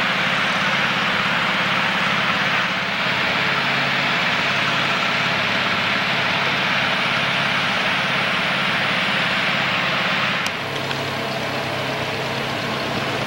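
A vehicle engine running steadily under a loud rushing noise; the rushing drops off suddenly about ten and a half seconds in while the engine hum carries on.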